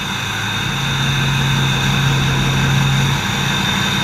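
Pickup truck engine idling steadily: an even low hum with a thin, steady high whine over it.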